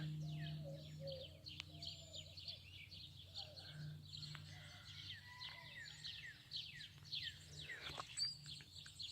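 Many small birds chirping, a steady stream of short falling chirps, over a faint steady low hum.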